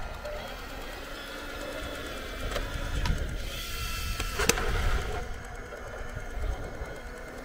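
Radio-controlled model Tiger I tank's small electric gear motors whining over a low rumble, with a few sharp clicks in the middle.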